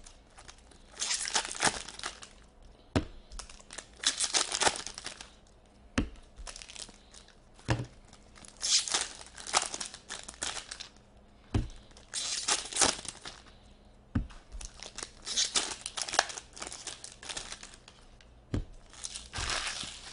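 Foil trading-card pack wrappers crinkling and tearing open in bursts about a second long every few seconds. Between the bursts come about half a dozen short sharp taps as cards are handled on the table.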